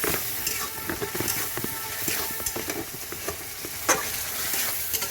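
Spice paste with tomatoes and onions sizzling in a pan while a spoon stirs and scrapes it, with a sharper knock of the spoon against the pan about four seconds in.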